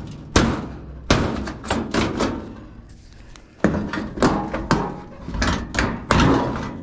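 Pry bar banging and prying at the sheet-metal top panel of a clothes dryer, which is still held tight: a series of sharp metal thunks and bangs, sparse at first and then coming thick and fast from about halfway in.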